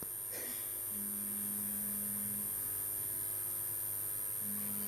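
Low mains hum through the hall's sound system, with a low tone that swells in and out twice and a faint constant high-pitched whine.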